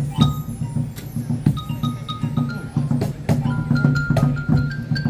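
Percussion band playing a song on homemade instruments made from recycled materials: a steady drum beat under a melody of short, struck, ringing notes that step up and down in pitch.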